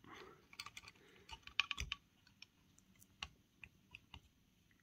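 Light clicks and rattles of the Aiwa AD-F500 cassette transport's metal motor plate and plastic parts being handled and lifted by hand, with a close cluster of clicks about one and a half to two seconds in, then scattered single ticks.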